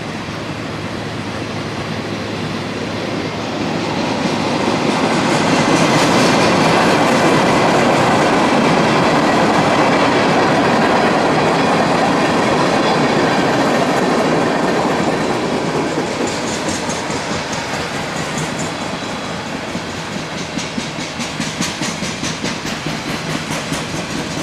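Loaded freight train cars rolling past, the wheels clicking over rail joints in a steady rhythm. The rumble swells louder for several seconds mid-way, then eases.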